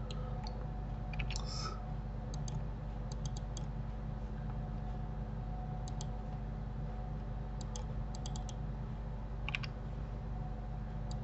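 Scattered clicks of a computer mouse and keyboard keys, singly and in quick groups of two to four, over a steady low hum.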